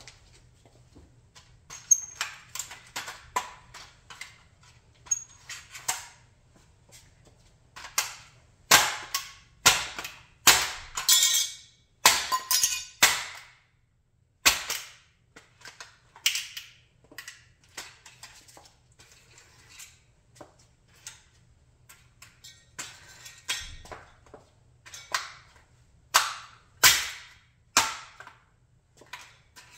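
A scale-model Chrysler 300B being crushed under sandal heels on a concrete floor: an irregular series of sharp cracks and snaps as its body and parts give way. The cracks come thickest about a third of the way in and again near the end.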